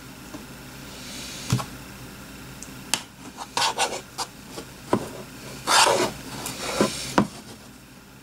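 Slime mixture with hard chunks of old Play-Doh being mixed in a container: irregular scraping and rubbing strokes with a few sharp clicks, busiest in the second half.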